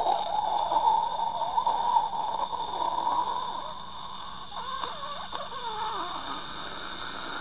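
A person's voice imitating sound effects with the mouth: breathy, hissing noises with wavering, gliding pitches. It gets somewhat quieter about halfway through.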